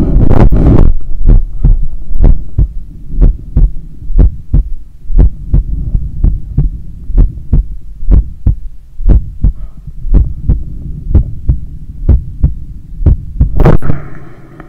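Human heartbeat recorded close against the chest, in lub-dub pairs about once a second, over a steady low hum. Loud rustling covers the first second and comes back briefly near the end.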